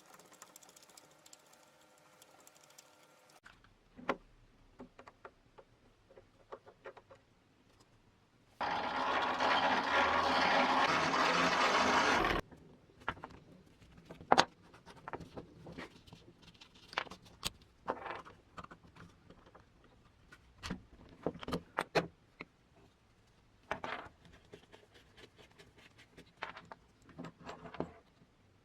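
Workshop handling of a rusted hand-cranked grinder's metal parts: scattered clicks, knocks and clinks, broken by one loud, steady mechanical noise of about four seconds in the first half.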